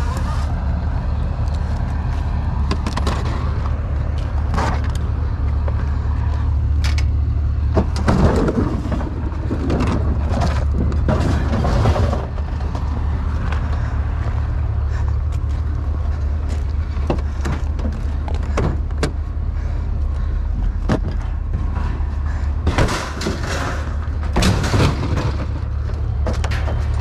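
A steady low engine rumble runs under intermittent clicks, clanks and rattles of ratchet straps and scrap metal being handled on a loaded pickup. There are louder bursts of knocking and scraping about a third of the way in and again near the end.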